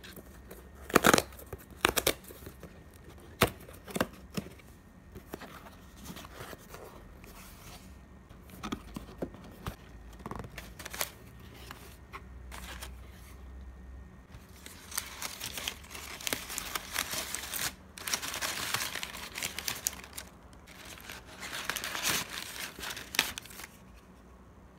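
Cardboard shipping box's perforated tear strip being ripped open in several sharp pulls, followed by handling of the box and long stretches of tissue paper rustling and crinkling.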